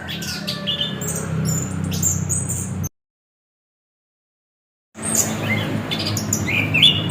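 Anis kembang (chestnut-capped thrush) singing a run of quick, high, varied chirps and whistled notes over a steady low hum. The sound cuts out completely for about two seconds in the middle, then the song resumes.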